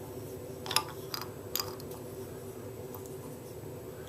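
Handling noise from a shower head being wiped clean by hand: three or four short clicks and scrapes about a second in, over a steady hum.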